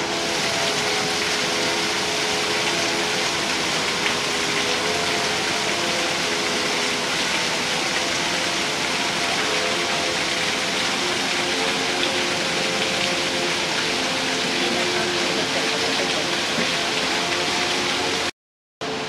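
Steady rush of an artificial rock waterfall splashing onto stones, with faint voices under the water noise.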